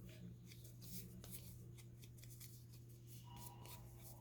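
Faint rustling and light clicks of paper pieces being handled, over a low steady hum.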